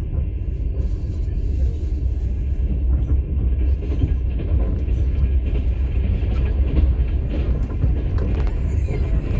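Passenger train running, heard from inside a platzkart sleeper car: a steady low rumble of the wheels on the rails, with faint scattered clicks and rattles from the car.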